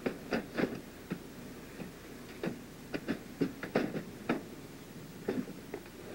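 A dozen or so light, irregular metal clicks and knocks from a cargo rail and roller assembly being handled and set into position on its floor fittings.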